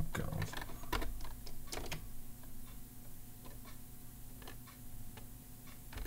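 Slow, hesitant keypresses on the stiff rubber-dome keys of a SafeType vertical ergonomic keyboard: scattered, irregular clicks, a little more frequent in the first couple of seconds.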